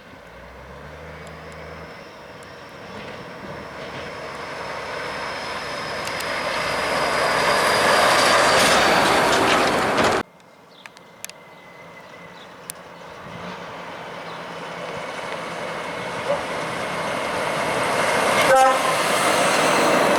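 A heavy truck approaches, its engine and tyre noise growing steadily louder until it cuts off abruptly about halfway through. Then a second truck approaches, growing louder to the end.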